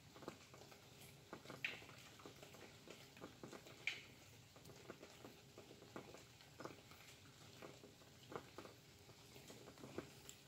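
Faint light rain: scattered raindrops tapping irregularly, with two sharper ticks about 2 and 4 seconds in.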